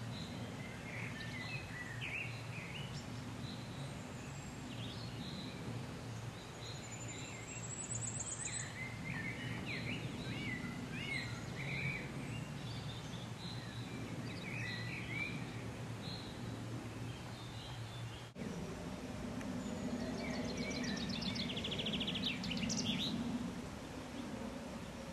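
Small songbirds chirping on and off over a low, steady background rumble. There is a short high trill about eight seconds in, and a fast rattling run of notes near the end.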